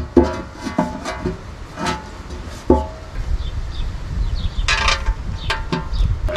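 Hands working at a truck's steel oil pan from underneath: scattered clicks and knocks, with a quick cluster of them about five seconds in.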